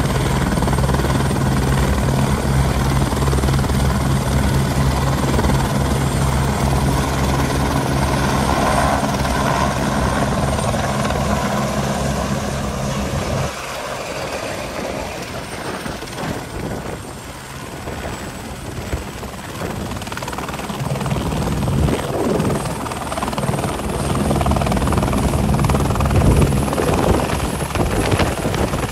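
Airbus H125 helicopters running on the ground, their single turboshaft engines and rotors making a steady, loud beat. About halfway through the sound drops to a quieter, more uneven rotor noise, then grows louder near the end as a helicopter lifts into a hover.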